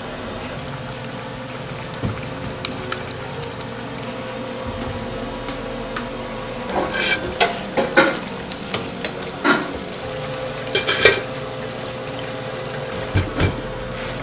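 Breaded chicken cutlets deep-frying in a commercial fryer, a steady sizzle, with metal tongs clicking and clattering against the fryer several times in the middle.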